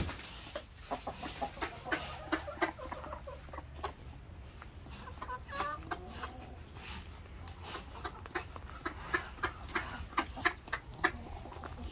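Domestic hens clucking, with a few short calls about halfway through and many short sharp clicks.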